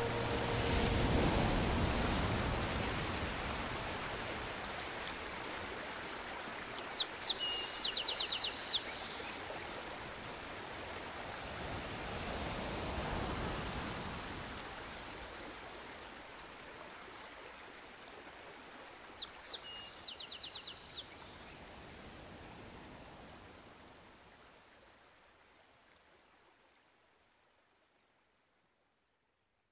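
Running water of a stream with a bird giving a short rapid trill twice. The water sound slowly fades away to silence near the end.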